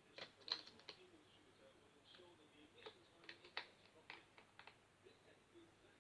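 Faint, scattered clicks and taps of small plastic model-kit parts being handled and set down on a work surface, about a dozen in all.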